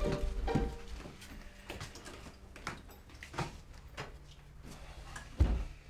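Footsteps of several people walking on a wooden floor, a quick irregular run of light knocks and taps, with a louder low thump near the end.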